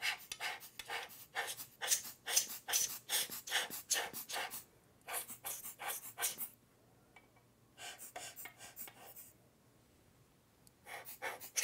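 Hand-squeezed rubber blower bulb puffing air into a microscope's field lens housing to blow dust off the mirror. The puffs come in several runs, several puffs a second, with short pauses between.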